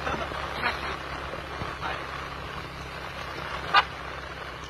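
Honda Winner X150's single-cylinder engine idling steadily, with one short blast of a loud aftermarket horn nearly four seconds in.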